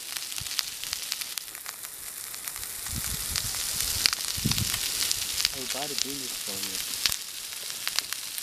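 Masala-coated catfish steaks sizzling on a cast-iron griddle over a wood fire: a steady frying hiss with frequent sharp crackling pops.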